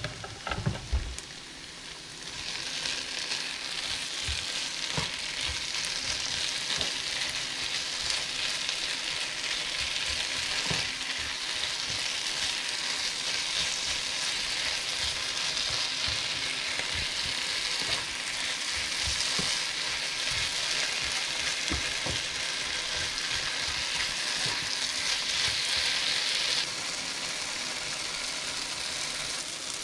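Chopped tomatoes and vegetables sizzling in a frying pan while being stirred with a spatula, with scattered scrapes and knocks against the pan. A few knocks come at the start, the sizzle builds about two seconds in, and it drops off abruptly near the end.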